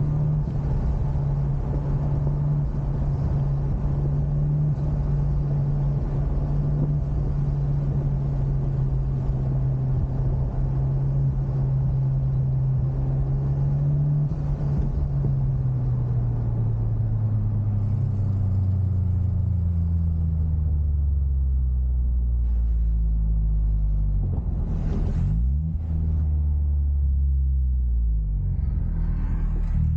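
Honda Civic Type R's turbocharged 2.0-litre four-cylinder engine heard from inside the car on track, holding steady revs, then revs falling slowly for several seconds. About three-quarters through there is a quick drop and swing in pitch, as in a gear change, and the revs then climb again, over a steady rumble of road and wind noise.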